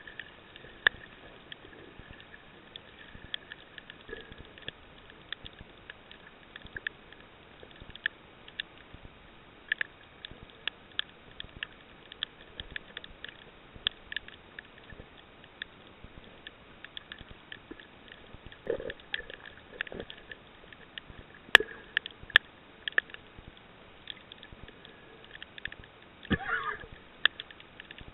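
Underwater coral reef sound: a low hiss with scattered, irregular crackling clicks, a few louder clicks about two-thirds of the way through, and a short downward-sliding sound near the end.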